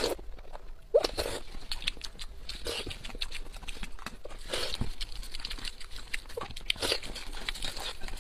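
Close-miked eating sounds: wet mouth noises from sucking meat, with one loud short mouth sound about a second in. Then many short wet clicks and tearing sounds as a boiled sheep's head is pulled apart with plastic-gloved hands.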